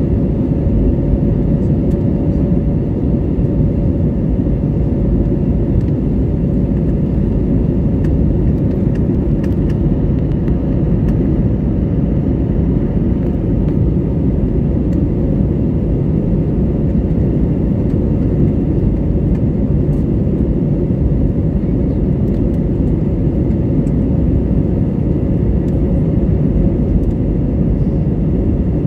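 Steady cabin noise of an Airbus A320neo climbing after takeoff: a loud, even rumble of its Pratt & Whitney geared turbofan engines and airflow, with a steady hum running through it.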